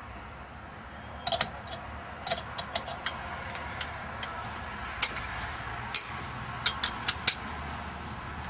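Sharp metal clicks and taps, scattered irregularly, as a steering wheel puller and its bolts are handled and tightened by hand. The loudest, about six seconds in, rings briefly.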